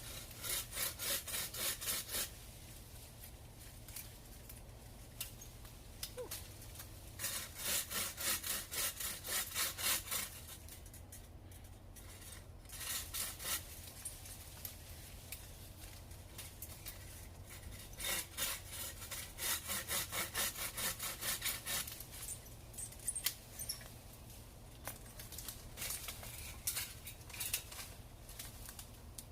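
Hand saw cutting through a tree branch in bouts of quick, even back-and-forth strokes, about three a second, with short pauses between bouts.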